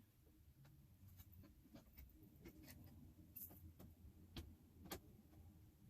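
Faint, irregular clicks and taps of garment-rack parts being handled and fitted by hand, as the middle bar is put in, with a few slightly sharper clicks in the second half.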